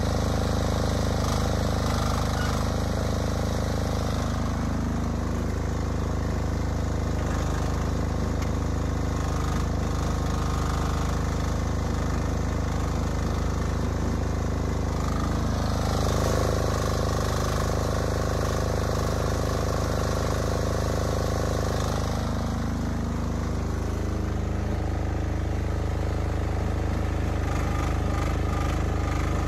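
HT08 mini excavator's engine running steadily, with a higher whine that comes and goes several times as the machine works.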